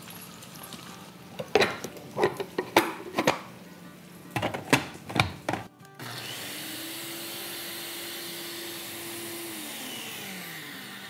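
Clicks and knocks as a blender cup full of dry-roasted whole spices is handled and locked on, then about six seconds in a Ninja Auto-iQ blender's motor starts with a steady whirr, grinding coriander seed, cumin and black peppercorns to a powder. Near the end the motor stops and its pitch falls as it spins down.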